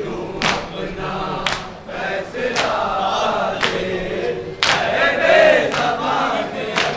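A group of men chanting an Urdu noha in unison, with matam: hands struck on chests together about once a second, sharp slaps in a steady beat under the lament.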